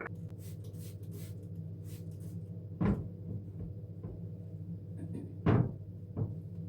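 Kitchen cupboard doors knocking shut: two solid knocks about three seconds apart, the second the loudest, then a couple of lighter knocks near the end. A steady low hum runs underneath.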